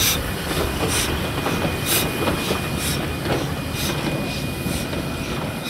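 Narrow-gauge steam locomotive NM25 (ex-Commonwealth Railways, built 1925) moving slowly, with sharp exhaust beats about once a second over the rumble and clank of its wheels on the rails. It grows slowly fainter as it draws away.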